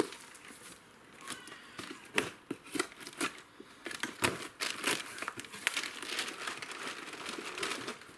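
Cardboard box being torn open by hand, its taped flaps ripped and pulled apart: irregular crinkling and tearing broken by sharp cracks.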